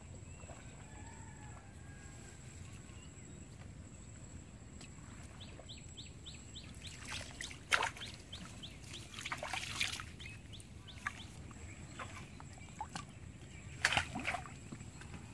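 Short bursts of splashing and rustling as hands work through weeds in shallow floodwater beside the boat, about halfway through, again a second or two later and near the end. Just before the first burst a bird chirps a quick run of short notes.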